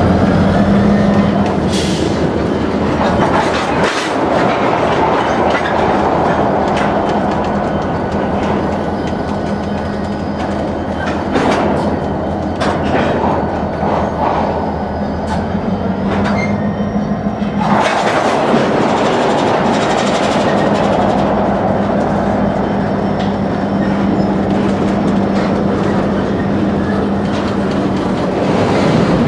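Slow-moving diesel freight train: the EMD GP38-2 and GP40-2 locomotives' engines run with a steady low hum, while the wheels and cars add a rumble and scattered sharp clanks and clicks.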